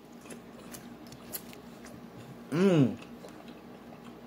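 A man chewing a mouthful of taco, with faint small clicks of chewing, and a short hummed 'mmm' about two and a half seconds in that rises and then falls in pitch.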